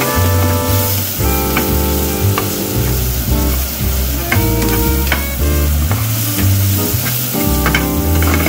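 Sliced red onion and red bell pepper sizzling in a nonstick frying pan, stirred with a silicone spatula, under background music with a bass line.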